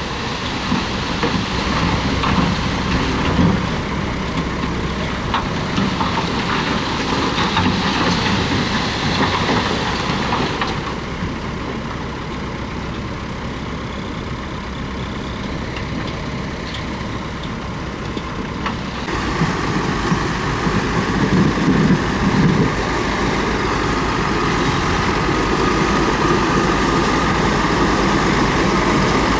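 Komatsu D31P bulldozer's diesel engine running, its sound changing abruptly about eleven seconds in and again near twenty seconds.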